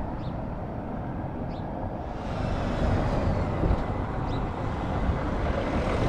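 Airliner jet engines running on the airport's runway, a steady low rumble; about two seconds in the sound shifts and a faint high engine whine comes in.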